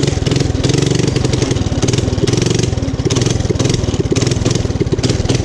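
Small pull-start gas engine of a motorized bike, running steadily with a rapid, even firing beat just after catching on the first pull.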